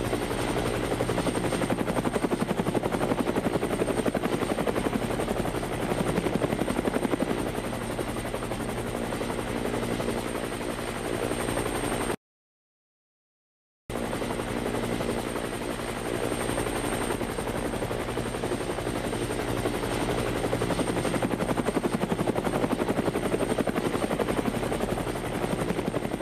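Helicopter rotor running: a rapid, steady blade chop with a thin high whine over it. It cuts out completely about twelve seconds in and comes back a second and a half later.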